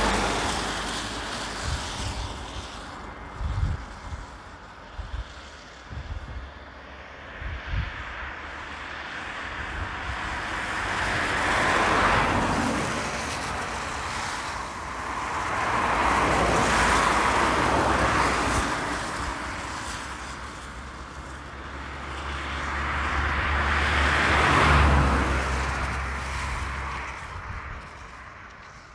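Road traffic: vehicles passing close by one after another, each a rushing tyre-and-engine sound that swells and fades over a few seconds, three times. A few short low thumps in the first several seconds.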